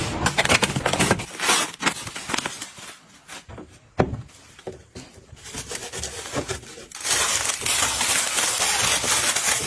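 Household items being handled and set down: scattered clicks, taps and knocks, then a steady hiss from about seven seconds in.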